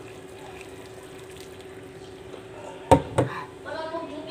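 Hot water from a pot of boiled eggs pouring through a metal strainer into a stainless steel sink. About three seconds in come two sharp metallic clanks as the pot is set down in the sink. A steady low hum runs underneath.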